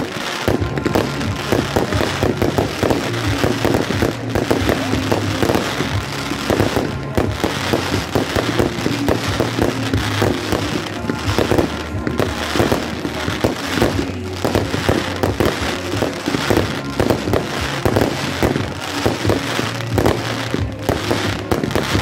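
Fireworks display: a continuous barrage of bangs and crackling from aerial shells bursting, with music playing underneath.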